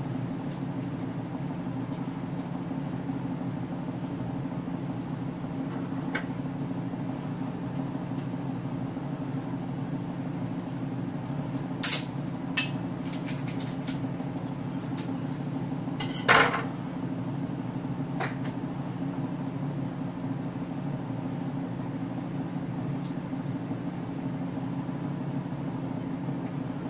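Steady low hum with a few scattered clicks and knocks of kitchen items being handled. The loudest, a brief clatter, comes about sixteen seconds in.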